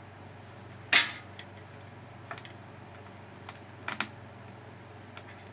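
Sharp clicks and knocks of a ballast, its mounting screw and wires being handled against the sheet-metal channel of a fluorescent light fixture: one loud knock about a second in, then several lighter clicks.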